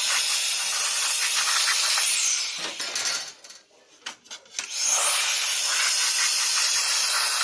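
Lexmark X364dn laser printer mechanism running with a loud rasping grind, stopping briefly about three seconds in and then starting again. The grinding is the printer's fault, which was cured by replacing the duplex assembly.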